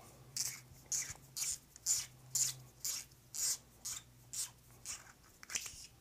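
Threaded hood of a Neutrik male XLR connector being unscrewed by hand: a run of short, soft scraping rubs, about two a second, one for each twist of the fingers.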